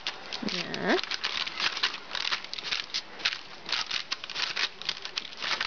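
Hands patting and pressing biscuit dough flat on a parchment-lined baking sheet: a run of quick, irregular soft taps, with the parchment crinkling.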